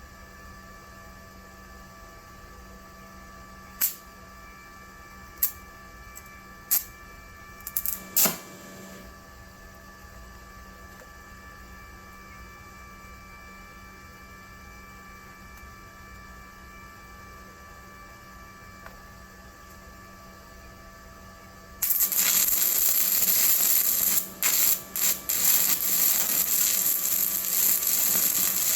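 A steady electrical hum with a few sharp metallic clicks. Then, about 22 seconds in, a 7018 stick-welding arc strikes and crackles loudly and steadily, breaking off briefly a couple of times.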